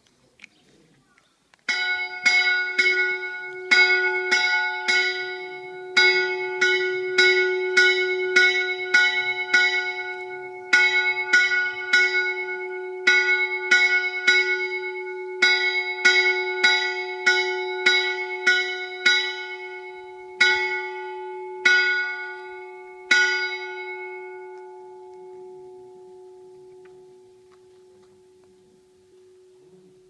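Rope-rung bells of an Eastern Orthodox monastery's bell gable clanging in quick, irregular runs of strikes, starting about two seconds in. Near the end they slow to a few single strikes, and then a long hum dies away.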